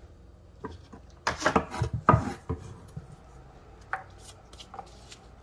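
Diced pumpkin being swept off a wooden cutting board into a disposable aluminium foil pan: a quick cluster of knocks and scraping a little over a second in, then a few single taps.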